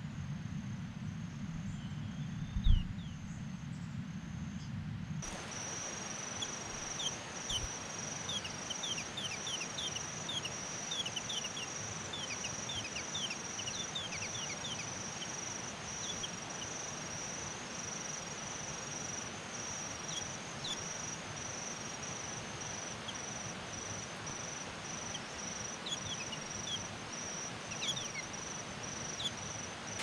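Outdoor insect chorus: a steady, high, pulsing trill throughout, with many short, thin, falling chirps of small birds scattered over it, most of them in a run between about seven and fifteen seconds in. A single sharp knock comes near three seconds in, over a low hum that stops abruptly about five seconds in.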